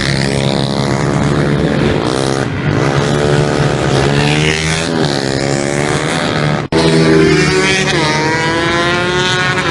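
Several small motorbike engines revving hard, their pitch rising and falling as they accelerate and pass. The sound drops out for an instant about two-thirds of the way through.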